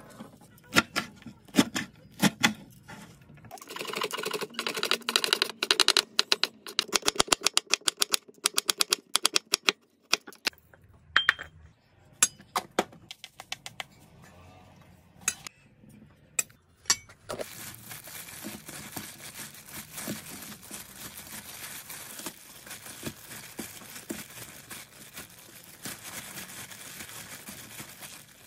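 Blanched chwinamul greens squeezed wet by hand, then a long run of fast, even knife chops on a wooden cutting board. A few separate clicks of a spoon on a stainless steel bowl follow as the seasonings go in. From a little past halfway comes a steady rustle of plastic-gloved hands tossing the greens and onion with doenjang in the bowl.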